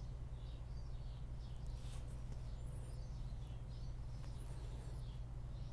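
Steady low hum with faint, irregular high chirps and two brief high squeaks, about three and about four and a half seconds in.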